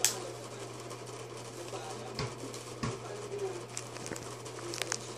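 Scattered clicks and knocks from hands handling an opened tablet and its internal connectors, the sharpest one at the very start, over a steady low hum.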